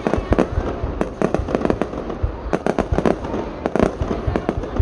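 Fireworks display bursting overhead: a dense, irregular barrage of loud bangs and booms, several a second, with no let-up.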